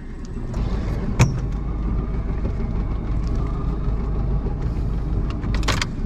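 Small boat's motor running at low speed, a steady low rumble that comes in about half a second in. A single sharp knock sounds about a second in.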